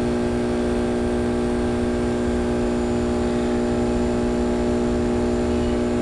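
A machine running: a steady, unchanging hum holding one pitch with several overtones.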